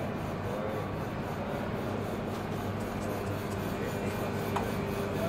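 Steady indoor hall ambience: a constant wash of background noise and low hum with faint, distant voices.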